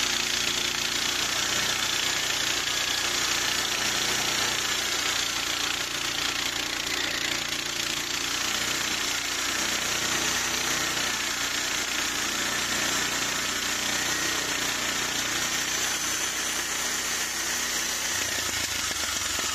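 Harbor Freight bandsaw mill's gas engine running steadily while its band blade cuts through a plum log.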